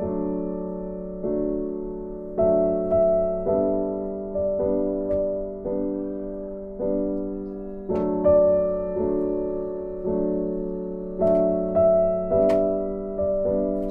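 Background music: soft piano playing slow chords and single notes, each struck and left to die away.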